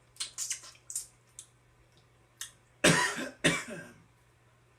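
A man coughs twice, hard, about three seconds in, after a few small sharp clicks of eating and mouth noise.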